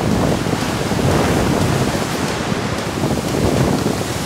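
Wind buffeting the microphone and water rushing past the hull of a racing yacht sailing fast under sail, a steady, loud rush of noise.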